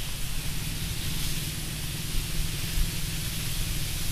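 Steady hiss with a low rumble underneath: the background noise of the voice-over microphone, with no distinct event.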